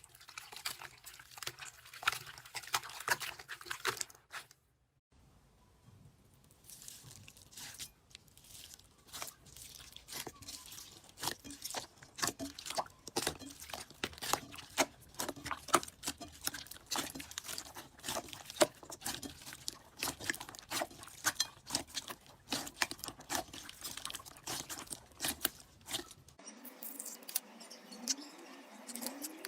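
Slime being squeezed and pressed by hand, making a dense run of small crackling pops and clicks. The sound breaks off briefly about four and a half seconds in, then resumes.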